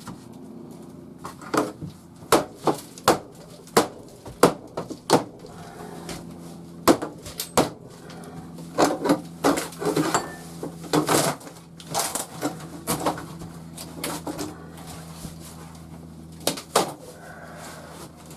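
Irregular knocks and clanks of wood and metal pieces being handled and pulled apart during camper demolition, about one or two sharp strikes a second, over a faint steady low hum.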